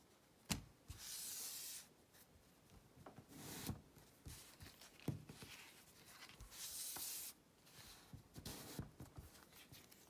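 Dry paper scraping and rustling from a cardstock pop-up card as its pull tab is slid, folding the paper inn and popping it back up to lock the card flat. There are about four short scraping slides and a couple of sharp taps of card.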